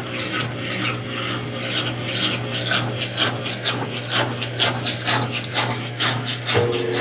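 Brastemp Ative top-loading washing machine agitating in the rinse cycle: water and clothes swishing about three times a second over a steady motor hum. Near the end a higher steady hum starts up.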